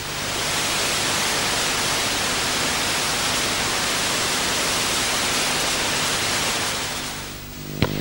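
Analog television static: a steady, even hiss of a dead channel, fading out near the end, followed by a single sharp click as the signal cuts over.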